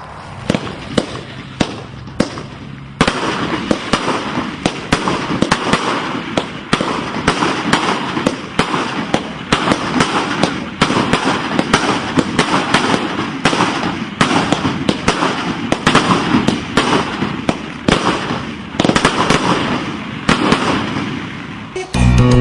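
Fireworks going off in a barrage of sharp pops over dense crackling. It starts with scattered pops, thickens into continuous crackle about three seconds in, and stops abruptly near the end.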